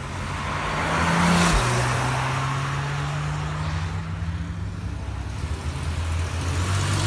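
A Porsche convertible accelerating past, its engine note swelling to a peak and dropping in pitch as it goes by, then fading. Another vehicle approaches near the end.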